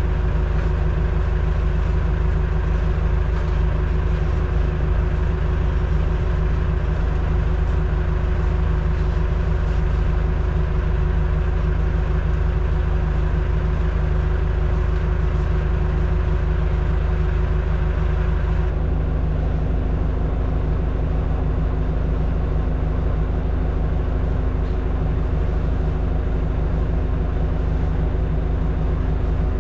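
Compact loader's engine running steadily, a constant low hum. About two-thirds of the way in the sound shifts: the higher hiss falls away and a new steady low tone sets in.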